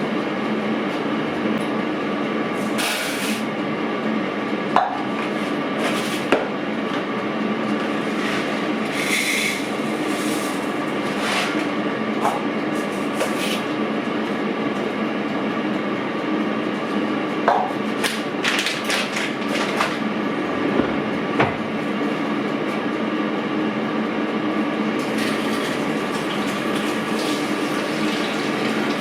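Steady mechanical hum, like a kitchen fan or appliance running, with a handful of sharp knocks and clinks and short bursts of hiss from cooking work.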